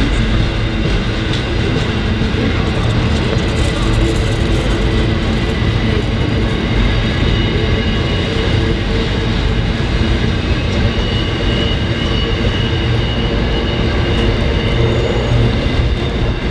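Container wagons of a freight train rolling past close by on the rails: a steady, loud rumble with thin steady tones running through it.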